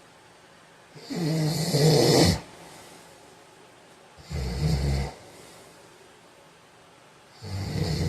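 A heavyset man snoring in his sleep: three snores about three seconds apart, each with a low rattling pitch. The first is the longest and loudest at over a second, and the third begins near the end.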